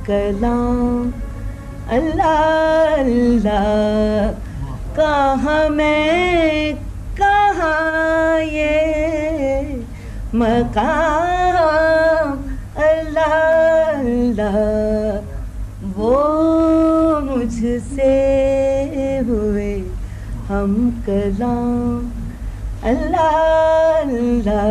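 A woman singing a ghazal solo and unaccompanied, in phrases of held notes with sliding, ornamented turns between pitches. A steady low electrical hum runs underneath.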